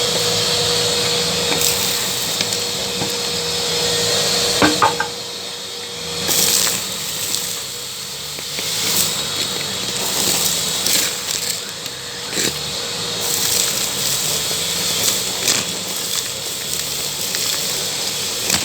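Makita VC3011L 1000-watt construction vacuum running under suction, with pebbles and bits of concrete rattling and cracking as they are sucked up the hose. Sharp clicks come at uneven intervals over the steady running sound.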